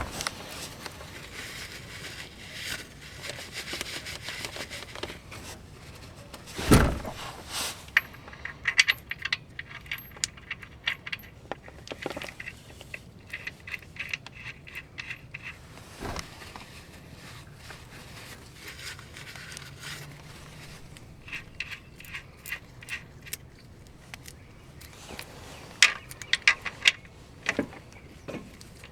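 Metal hand tools clinking and scraping on a car during an oil and transmission fluid change, with runs of quick clicks and one loud knock about seven seconds in.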